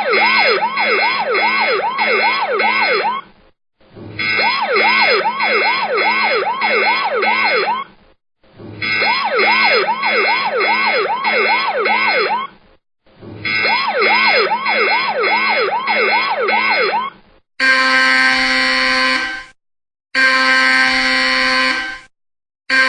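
Electronic warning siren sound effect: four bursts of a rapid yelping siren, its pitch sweeping up and down about twice a second. Near the end it gives way to a harsh steady buzzer sounding in blasts of about two seconds.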